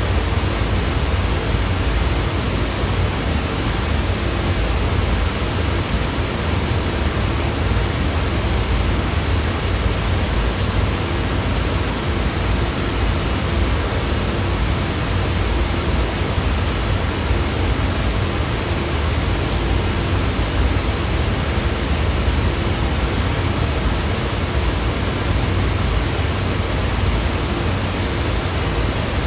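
Steady, unbroken white-noise sound effect: an even hiss across the whole range, with a heavier low rumble underneath and no change in level.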